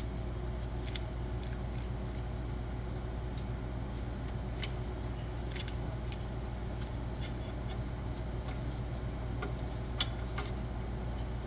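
Steady low hum of shop fans running, with scattered light metallic clicks and clinks of hand tools and suspension parts; the sharpest click comes a little before the middle, another near the end.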